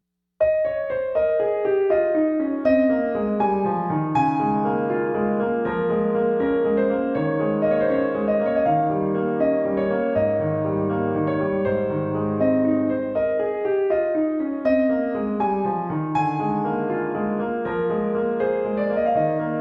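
Solo piano music: gentle arpeggiated phrases with repeated falling runs of notes over sustained low notes.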